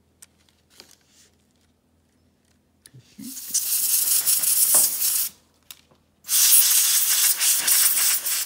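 Aerosol can of spray lithium grease hissing in two bursts of about two seconds each, about three and six seconds in, sprayed through its thin straw onto the plastic odometer gears to lubricate them.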